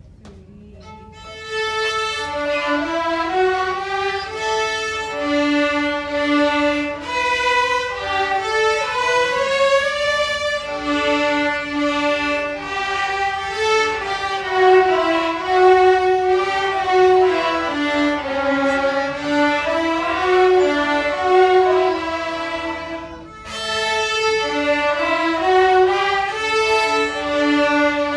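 Student string ensemble of violins and violas playing together in unison and parts, starting about a second and a half in, with a brief break in the phrase a little before the end.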